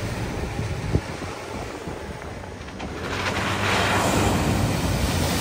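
Vehicle driving through deep floodwater at a ford, water splashing and surging, growing louder from about three seconds in, with wind on the microphone. A single sharp knock about a second in.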